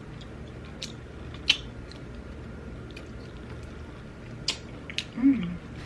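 Close-miked eating of jerk shrimp pasta: a few sharp, wet mouth clicks and smacks while chewing, with a short falling hum near the end.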